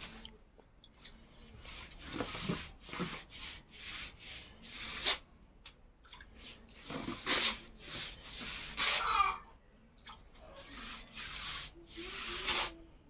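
Hand wiping wet paint onto a rough plastered wall: a run of irregular rubbing, swishing strokes.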